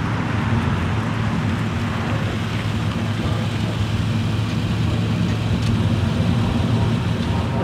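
A car being driven: steady road and engine drone with a low hum underneath, unchanging throughout.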